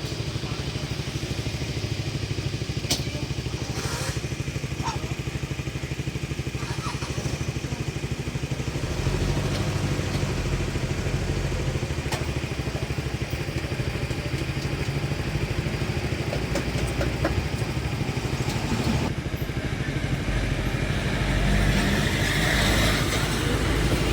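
Small two-stroke chainsaw engine running steadily, getting louder about nine seconds in and again near the end, with a couple of sharp knocks a few seconds in.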